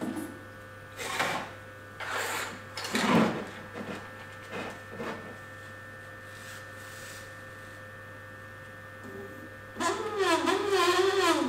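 Stepper motors of a 3D-printed six-axis robot arm running in several short moves, over a steady electrical hum and whine. Near the end a longer move brings a louder tone whose pitch wavers up and down.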